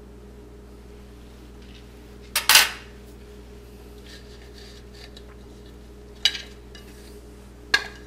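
Stainless steel plates and a knife clattering as they are handled and set down: a loud double clatter about two and a half seconds in, then two short clinks near the end.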